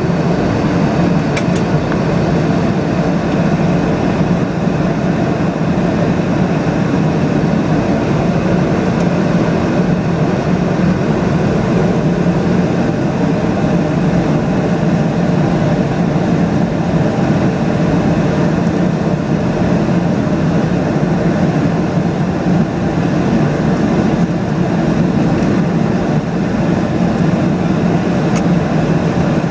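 Steady low drone of a Boeing 757 heard inside the cabin from a seat beside the engine: jet engine and rushing airflow during the descent to land.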